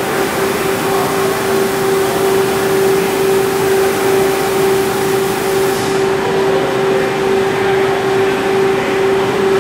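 CNC lathe running idle: a steady machine hum with one constant pitched tone over a noisy rush. A high hiss in it cuts off about six seconds in.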